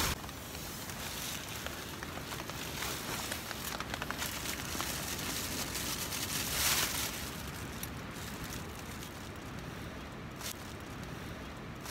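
Storm wind rushing through the trees around the camp, a steady noise like a river, swelling in gusts about four and seven seconds in.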